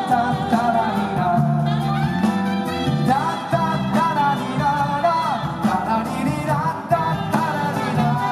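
Live band music with a bending lead melody line over sustained bass notes and sharp percussive hits.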